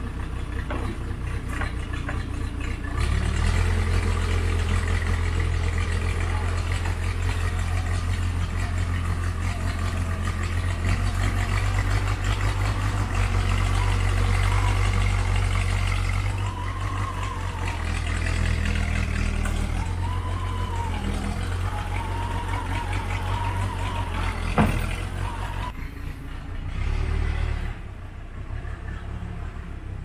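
Case 580C backhoe's engine running, louder from about three seconds in as the machine works, with a whine rising and falling over it for several seconds and one sharp metal clank near the end.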